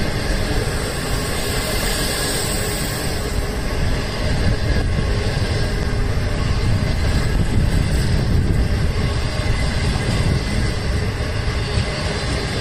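Green China Railway 25G-type passenger coaches rolling past close by, their steel wheels running on the rails in a steady rumble.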